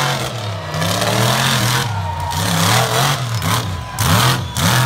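Bounty Hunter monster truck's supercharged V8 engine revving hard, its pitch rising and falling again and again in repeated throttle bursts.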